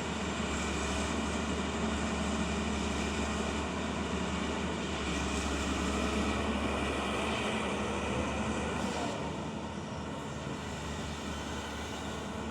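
Excavator's diesel engine running steadily with a low drone, which eases off a little about seven seconds in.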